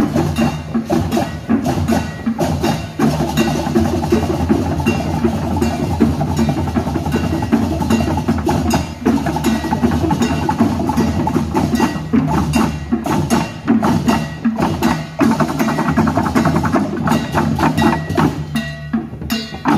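Balinese gamelan music playing: fast, dense metallic percussion over steady low tones.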